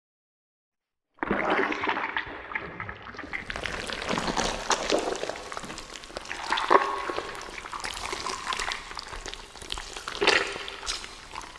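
Wet, gurgling, sloshing sound effect for a blob creature, starting abruptly about a second in, with sharper wet splats about halfway through and again near the end before it fades out.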